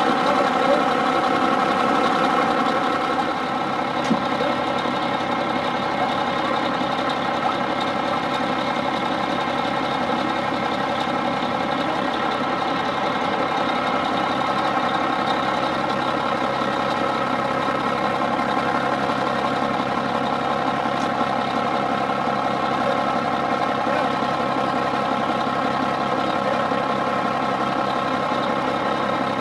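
Handheld flame torch burning steadily against a semi truck's frozen air brakes, heard over the even, steady hum of an idling engine.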